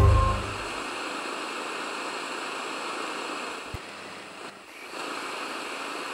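Steady hiss of static noise, left after loud synth music cuts off at the start; a single click a little under four seconds in, and the hiss briefly dips soon after.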